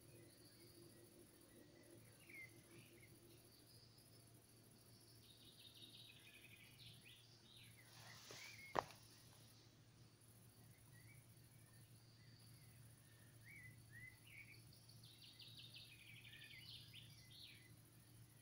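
Faint outdoor ambience with small birds chirping and trilling, in scattered short calls, and one sharp click about nine seconds in.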